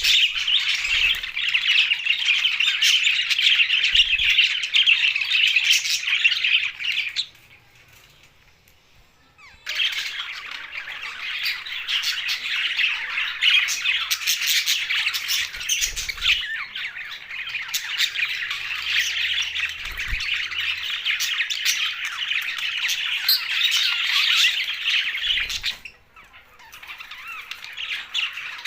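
A group of budgerigars, English and blue budgies, chattering and squawking together in a dense, continuous warble. It breaks off for about two seconds a quarter of the way in, and dips briefly again near the end.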